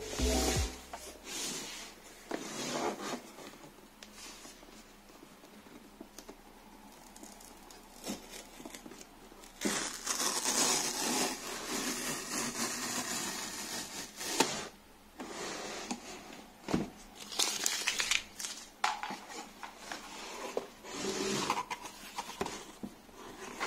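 Hands handling a cardboard shipping box, scraping and tapping on it, with a long tearing rip about ten seconds in as the carton is torn open, and shorter rips and scrapes after.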